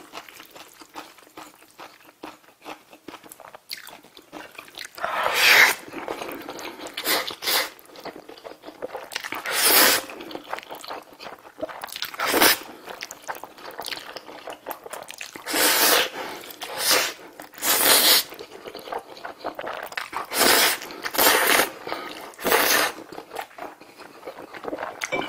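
A person eating black bean sauce instant noodles close to the microphone: about ten loud slurps of noodles, each half a second to a second long, with wet chewing between them.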